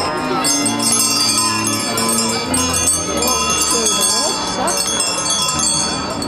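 Many bells of different pitches ringing together in a passing St. Nicholas procession, a dense jangle with low held tones underneath.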